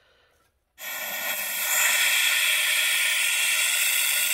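Compressed air hissing steadily through an air-powered coolant vacuum refill tool, starting suddenly about a second in: the tool is pulling a vacuum on the engine's cooling system so it can be refilled with coolant.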